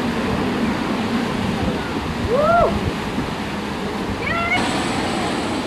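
Steady rush of wind and water with the low drone of an offshore racing powerboat running at speed. A short rising-then-falling cry cuts through about two and a half seconds in.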